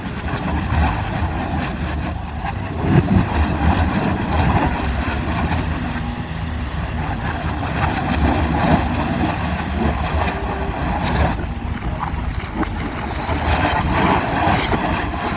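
Heavy excavator engines running, a steady low rumble with a broad noisy clatter over it, a little louder about three seconds in.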